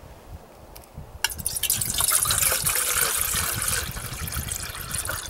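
Water poured from a plastic jug into a metal percolator pot, splashing as the pot fills. It starts with a click about a second in, is loudest in the middle and eases off near the end.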